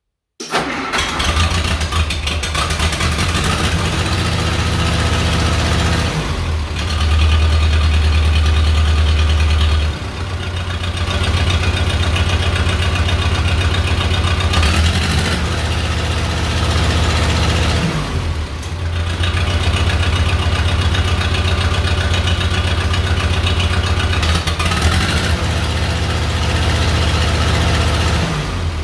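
Case 311B tractor's gasoline engine starting at once on its first start after a carburetor rebuild, at full choke and full throttle, then running on. Its speed and note shift several times, with a higher stretch from about 7 to 10 seconds in and dips near 10 and 18 seconds, and it sounds pretty good.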